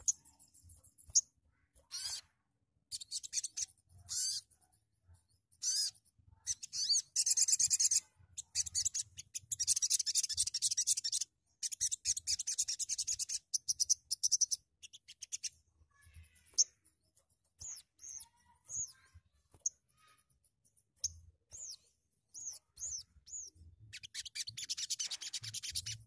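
Sogon (sogok ontong) sunbird singing: rapid high-pitched trills in long bursts, then a run of separate sharp chirps, and another dense trill near the end.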